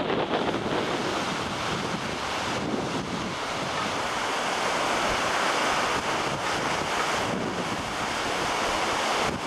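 Strong storm wind blowing hard and buffeting the microphone, mixed with surf breaking on the harbor shore, as a steady dense rush.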